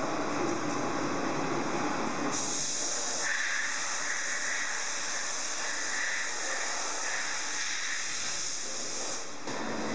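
CNC bed milling machine running with a steady hiss. The hiss gets brighter about two and a half seconds in, the lower rumble drops away, and it switches back abruptly just before the end.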